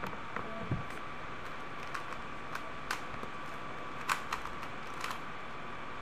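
Rubik's cube being turned by hand during a timed solve: scattered light plastic clicks and clacks, with a duller knock about three-quarters of a second in. A steady faint high whine and hiss sit underneath.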